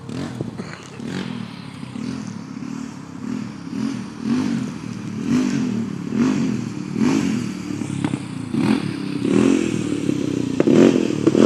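Kids' ATV engine running, its note rising and falling over and over as the throttle is worked, with some rattling and knocks, growing louder near the end.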